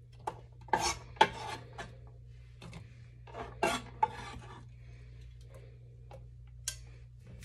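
Chef's knife blade scraping diced red onion across a wooden cutting board and off against the rim of a plastic blender cup. It makes a series of short rasping scrapes with quiet gaps between them.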